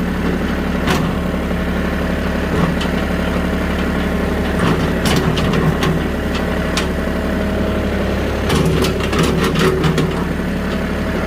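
Vehicle engine running steadily at low speed while it tows a skid steer on a chain. Scattered clanks and knocks come through, in a quick cluster about nine seconds in.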